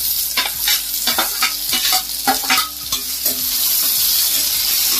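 Chopped onions and green chillies sizzling in hot mustard oil in a metal kadhai, with a steel ladle scraping and knocking against the pan as they are stirred. The knocks come mostly in the first few seconds, and the sizzle turns denser and steadier after that.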